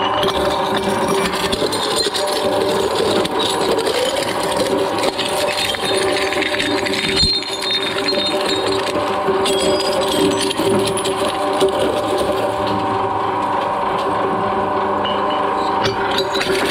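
Twin-shaft shredder running, its hooked cutters crushing green glass wine bottles: a steady motor hum under continuous crunching, cracking and clinking of breaking glass.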